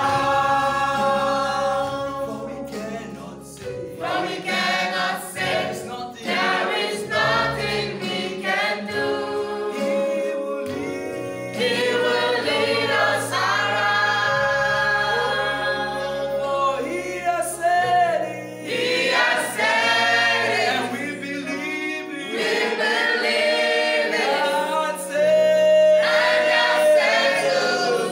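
Mixed choir of men and women singing a gospel song in harmony, with hand claps in places and steady low notes beneath the voices that change in steps.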